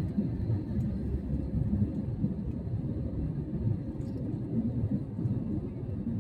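Airliner cabin noise: a steady low rumble of engines and airflow heard from inside the passenger cabin in flight.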